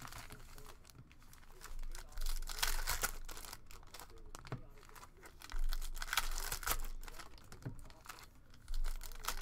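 Foil trading card pack wrappers being torn open and crinkled by hand, in three bursts of ripping and rustling with quieter handling between.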